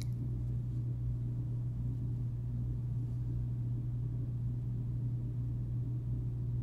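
Steady low rumble and hum of a car driving slowly, heard from inside the cabin.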